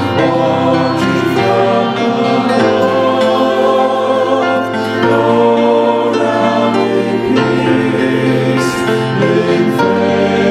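A choir singing a hymn-like piece in parts, with sustained chords that change every second or so.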